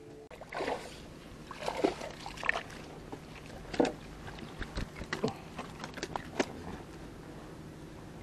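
A hooked Nile tilapia splashing at the water's surface and being brought into a small wooden boat, heard as irregular splashes and knocks that ease off after about six and a half seconds.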